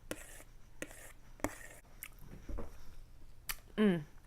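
Soft clicks and eating sounds, then a short burp near the end, pitched and falling slightly in pitch, the loudest sound here.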